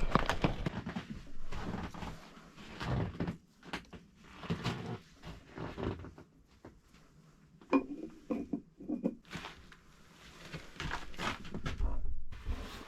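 Irregular rustling, clicks and knocks of someone working at a fireplace hearth while lighting a fire, with a few short clunks.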